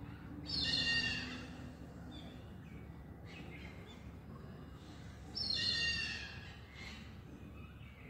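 Hornbill calling: two loud, high calls about five seconds apart, each about a second long with several pitches stacked and falling slightly at the end, with fainter calls in between.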